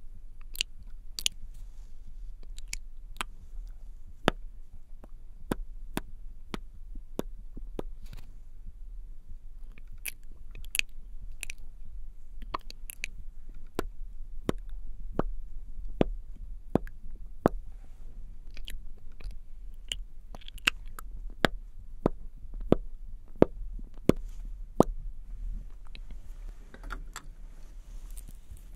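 Sticky, wet lip and mouth clicks close to the microphone as lip tint is applied with a wand, sharp and irregular at about one or two a second, over a steady low hum.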